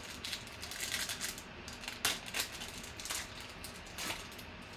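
Foil wrapper of a Panini Optic football card pack being torn open by hand: irregular crinkling and crackling, with sharp tearing sounds about two seconds in and once more near the end.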